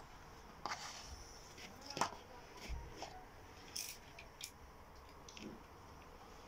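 A handful of faint, scattered clicks and light taps over quiet room tone.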